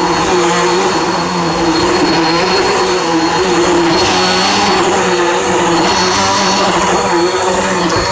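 Bissell Powerforce Helix bagless upright vacuum cleaner running steadily at full power: a steady high motor whine over a loud rush of air, with a lower hum that wavers slightly.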